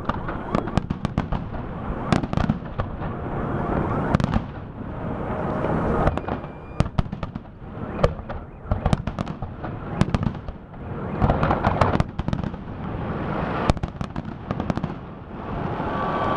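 Fireworks display: rapid clusters of sharp bangs and crackling shell bursts, with a low rumble of echoes between the salvos.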